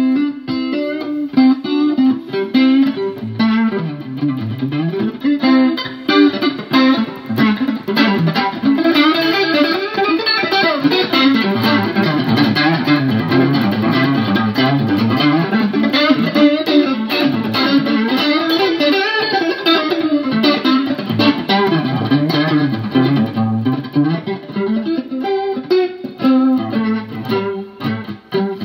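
Electric guitar played through a Danelectro Money Laundry rotary speaker emulator pedal, running fast scale runs of many quick notes that sweep up and down the neck.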